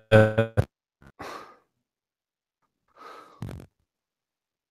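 A voice over a breaking-up internet video call: a clipped half-second fragment of speech, then two short breathy, garbled bursts separated by dead silence as the connection drops out.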